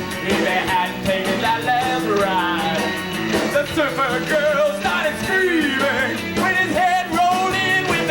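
Live rock band playing a song: electric guitar over bass and drums.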